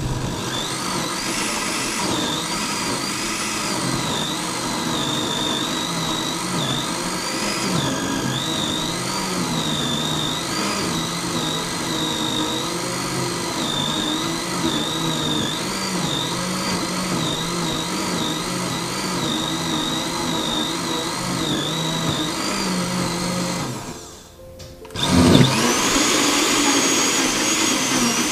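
Philips countertop blender running steadily as it purées spinach, its motor whine wavering in pitch as the thick mixture churns. Near the end it stops for about a second, then starts again louder.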